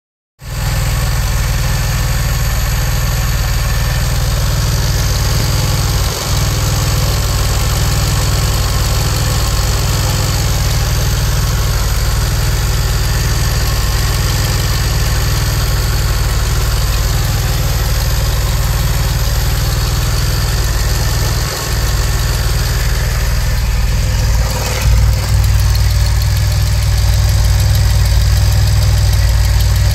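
DeLorean DMC-12's PRV V6 engine idling steadily, heard close to the engine and exhaust, a little louder near the end. It has a slight blow on the exhaust, which the owner thinks is a leak.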